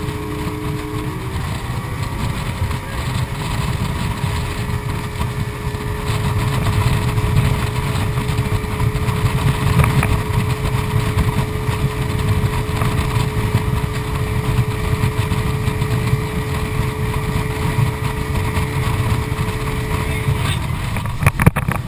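Motorboat engine running steadily under way while towing a tube, over a heavy low rumble. Its steady tone shifts slightly about a second in, holds, then drops away near the end, followed by a few sharp clicks.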